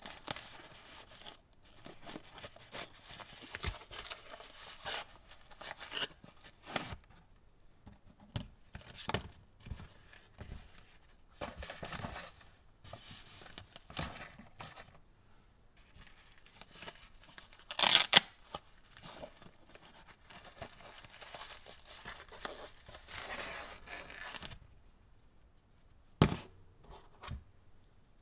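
Plastic packaging bag being handled and opened: a steady crinkling rustle with many small crackles, one much louder tearing rip about two-thirds of the way in, then quiet with a couple of light knocks near the end as a small part is handled.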